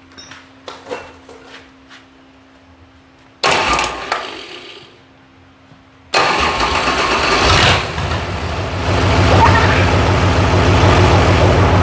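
Bulldozer diesel engine being started: a short burst about three seconds in dies away, then about six seconds in the engine catches and keeps running with an even, low throb.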